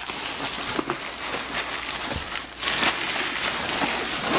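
Crumpled newspaper and packing paper rustling and crinkling as hands dig through a cardboard shipping box, with a louder rustle about two-thirds through.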